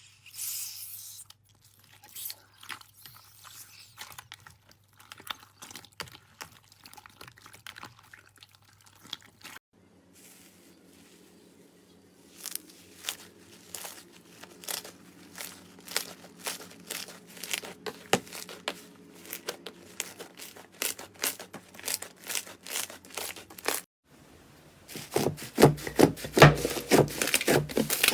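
Slime being pressed, poked and squished by hand, giving dense runs of sharp crackling and popping clicks. It comes in three separate stretches, the last one near the end the loudest.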